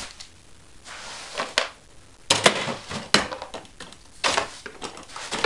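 Straw broom sweeping over carpet in several short strokes, with a few sharper knocks as it pushes pens about.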